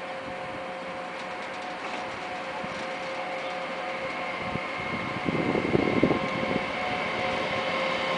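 Siemens Hellasprinter (OSE class 120) electric locomotive passing at low speed, its electric drive giving a steady whine of several tones that slowly grows louder as it approaches. Louder rough rumbling about five seconds in, as the locomotive passes closest.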